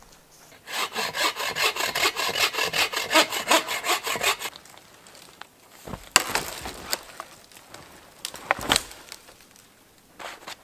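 Hand saw cutting into a dead hardwood log in quick, even back-and-forth strokes for about four seconds, followed by a few sharp cracks and knocks. The wood is dry.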